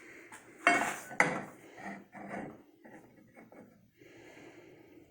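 Metal machine parts knocking and clinking as they are set in place: two loud sharp clanks about a second in, then a run of lighter clinks that dies away.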